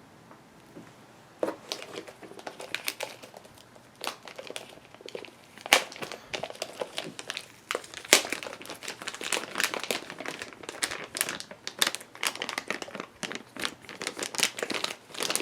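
Plastic packaging crinkling and rustling as it is handled and pulled open, in quick irregular crackles with some tearing, growing denser about halfway through.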